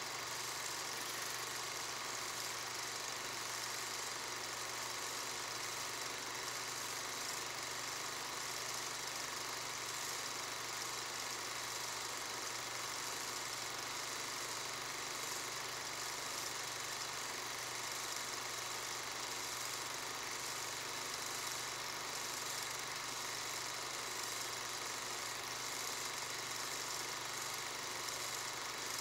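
A steady, even hum with hiss, like a machine running, that does not change.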